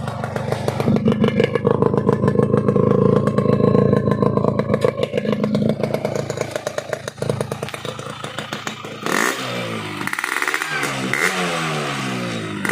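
Yamaha RX-King two-stroke single revving through its stock muffler fitted with a new baffle insert. It is held at high revs for a few seconds, then drops back, and in the last few seconds it gets a series of quick throttle blips that rise and fall in pitch.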